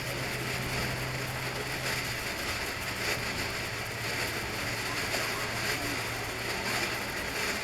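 Cutting Edge 'Proud Heritage' firework fountain burning: a steady, even hiss of spraying sparks.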